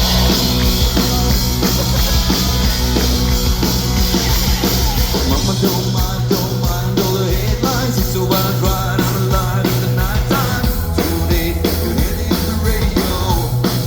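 Live rock band playing loudly: a steady drum-kit beat under sustained bass and guitar chords, with a wavering melody line, likely a voice, coming in about five and a half seconds in.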